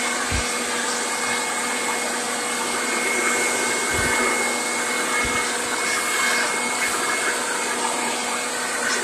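Handheld leaf blower running steadily, a rush of air with a constant whine, blasting dry leaves across a lawn.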